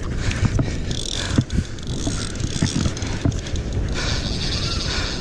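Spinning reel being cranked against a hooked fish, its gears and mechanism ticking rapidly under load, over a steady low rumble and hiss.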